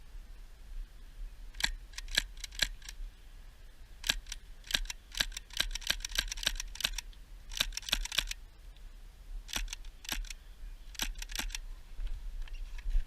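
Airsoft guns firing: sharp clicking shots in short strings, a few scattered shots and then a rapid run between about four and seven seconds in, with more bursts after.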